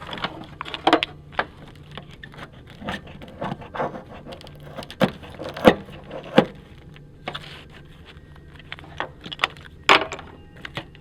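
Irregular clinks and knocks of objects being handled, with sharper strikes around the middle and near the end.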